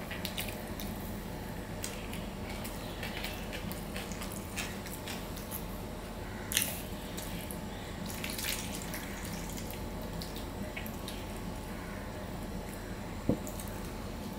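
Eating rice by hand from a steel plate: wet squishing and small sticky clicks as fingers mash and mix rice with mashed potato and thin lentil dal, and dal poured from a small steel bowl onto the rice. Two sharper knocks stand out, one about halfway through and one near the end.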